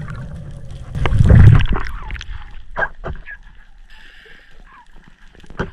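Muffled underwater sound during a breath-hold dive descent: a loud low rumble about a second in, then scattered clicks and brief faint squeaks, which the diver attributes to his congested ears squeaking as he goes down.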